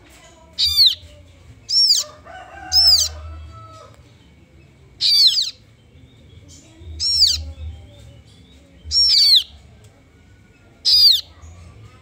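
Kaso-kaso nestlings calling: short, high chirps that sweep downward, seven calls spaced one to two seconds apart.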